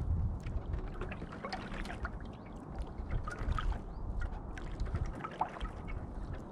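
Water lapping and trickling against a gliding canoe's hull, with many small splashes and drips, over a low wind rumble on the microphone.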